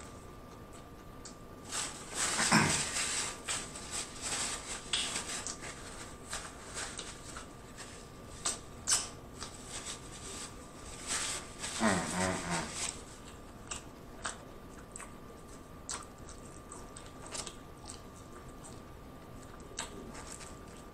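Close-miked mouth sounds of a person chewing a mouthful of burger: a dense run of wet smacks and clicks with two short hums, then sparser lip and tongue clicks for the last several seconds.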